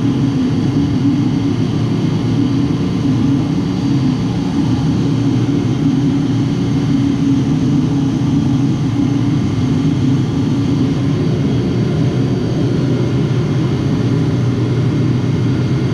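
Steady drone of running machinery, a few low tones held unchanged over a constant hum with no breaks or knocks.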